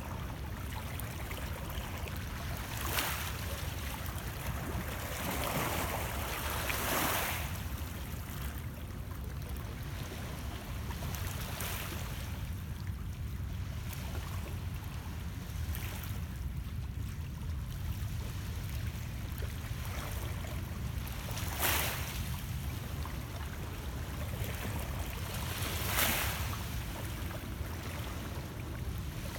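Small lake waves lapping against shoreline rocks over a steady low rumble, with several short splashes that stand out, the loudest near the end.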